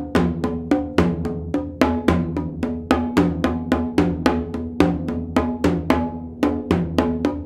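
Solo multipercussion: drums struck with sticks in a fast, irregular stream of accented strokes, several a second and uneven in loudness, each leaving a pitched drum tone that rings on between strokes.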